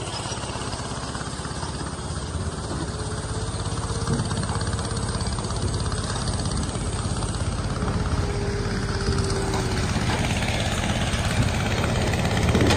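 Diesel farm machinery running steadily: a Manitou telehandler working at a sugar beet cleaner-loader whose engine and chains run alongside it. The sound grows slowly louder.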